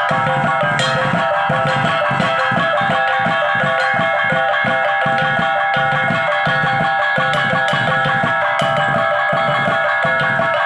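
Go laba gong-and-drum music: several hand-held gongs struck in an interlocking pattern, their tones ringing on over a large double-headed barrel drum. The drum keeps a steady quick beat of about four strokes a second.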